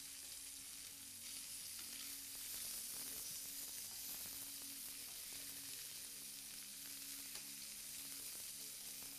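Salmon steaks sizzling steadily in hot oil in a frying pan, with light clicks of metal tongs against the pan as the steaks are turned over.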